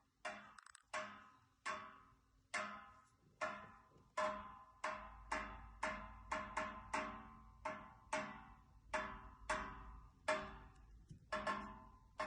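Central-heating radiator and its pipes knocking: a long run of sharp metallic clanks, each ringing out briefly, at about two a second and a little quicker in the middle.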